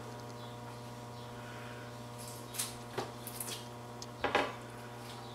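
Husk leaves being peeled by hand off a boiled ear of corn: a few soft rustles and tearing sounds and small knocks of the cob against a plastic tray, with the loudest near the end, over a steady low hum.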